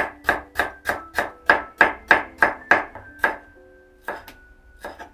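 Knife slicing young leaf ginger on a wooden cutting board: a steady run of knocks about three a second, then a short pause and three more spaced cuts near the end.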